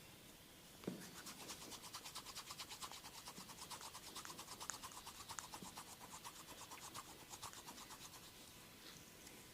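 A massager's hands rubbing rapidly and rhythmically over skin or hair, about five or six strokes a second, beginning with a soft thump about a second in and dying away near the end.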